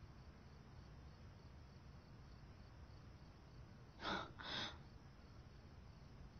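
Near silence broken about four seconds in by two quick breaths close together, a shaky intake from a woman holding back tears.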